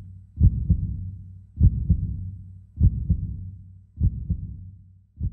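Heartbeat sound effect: a double thump, lub-dub, about every 1.2 seconds, five beats in all, over a low steady hum.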